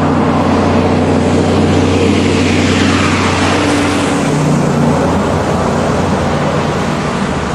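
A truck passing close by on a downhill mountain road, its engine and tyres loud. The pitch falls as it goes by, about two to three seconds in.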